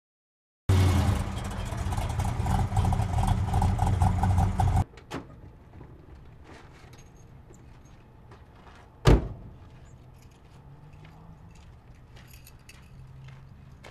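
Car engine running loudly, then cut off abruptly about five seconds in. About nine seconds in comes a single sharp car door slam, with faint small clicks and rustling around it.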